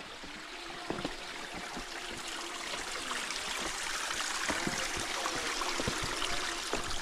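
Stream water flowing and trickling, growing gradually louder over the first few seconds.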